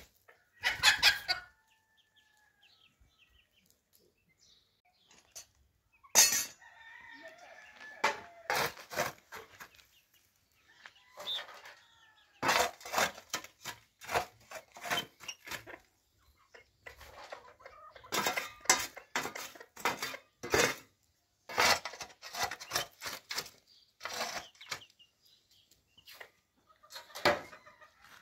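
Domestic chickens clucking, mixed with short, sharp knocks and clacks that come in clusters.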